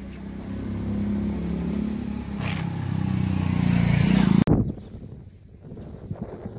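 Motorcycle engine running and pulling away, growing louder over the first four and a half seconds, then dropping suddenly to quieter riding noise with wind rushing over the microphone.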